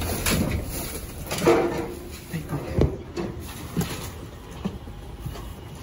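A large cardboard box being gripped, dragged and lifted out of a dumpster: scraping and irregular knocks of the box, with rustling of the plastic bags and trash around it. A few brief bits of voice are mixed in.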